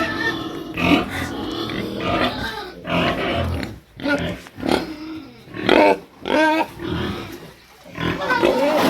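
Pigs grunting, with a few short pitched squeals about halfway through.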